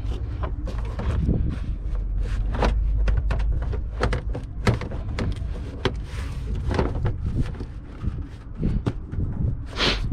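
Plastic covers and trim being handled and fitted back in place on the car, a run of irregular clicks and knocks over a low rumble, with one sharper click near the end.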